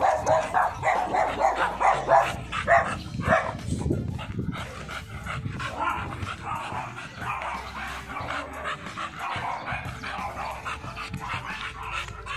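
A dog barking in quick short bursts, loudest over the first few seconds, then softer.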